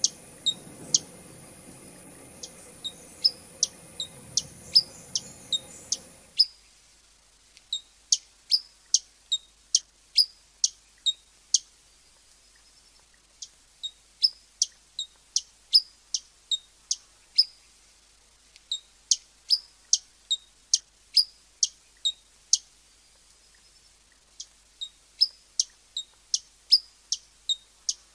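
Hummingbird giving a long series of short, high, sharp chip calls, about two to three a second, with a few brief pauses. A background hiss and hum drops out suddenly about six seconds in.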